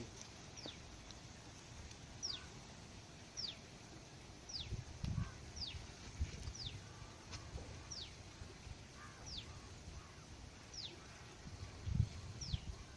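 A bird repeating a short, high, falling chirp about ten times, roughly once a second, against quiet outdoor background, with a few faint low thumps.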